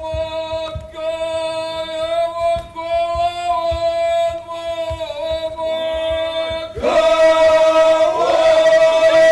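A group of costumed folk singers holding one long sung note together, with irregular low thumps from dancers' feet on the stage. About seven seconds in, more voices come in louder, some sliding in pitch.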